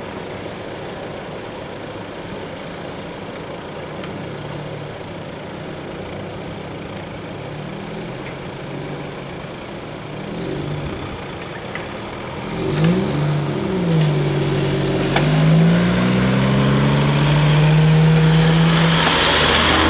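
Cars pulling away across a level crossing. Steady background noise at first, then from about twelve seconds in car engines accelerate with rising and falling pitch, growing louder, with a rush of tyre noise near the end as a car passes close.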